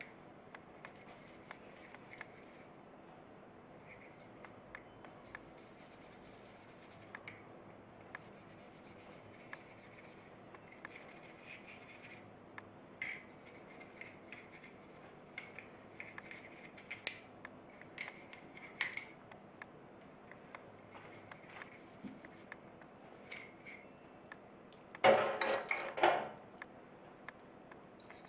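Wet toothbrush scrubbing a phenolic fuse-block part in short bursts of brushing strokes, with small clicks as the part is handled and a louder knock and rattle about 25 seconds in.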